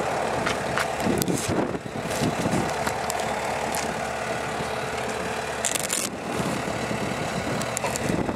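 Takeuchi TL150 skid steer's diesel engine running steadily, with a few short sharp knocks and a brief hiss about six seconds in.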